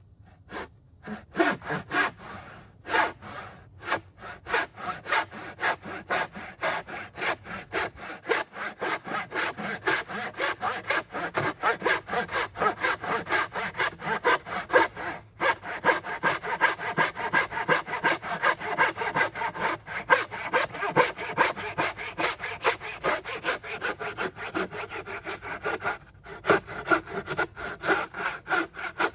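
Hand saw cutting through a board with quick, even strokes, stopping briefly twice before sawing on.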